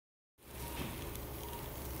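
Steady low hum and hiss of operating-room equipment, starting a moment in, with a faint steady tone above it.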